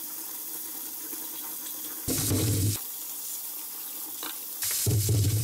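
Kitchen tap running into a stainless steel sink as a zucchini and then mushrooms are rinsed by hand under the stream. The water grows louder and fuller twice, for under a second each, about two seconds in and near the end.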